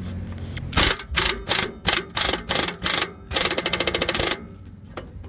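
Impact wrench hammering the 18 mm rear brake caliper bracket bolt tight: a quick series of short trigger bursts, then one longer run of rapid hammering lasting about a second before it stops.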